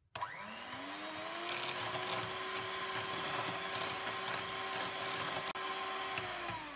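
Electric hand mixer running with its beaters whipping cream in a glass bowl: the motor spins up with a rising whine just after the start, holds a steady pitch, then winds down near the end. The cream is thickening toward stiff peaks.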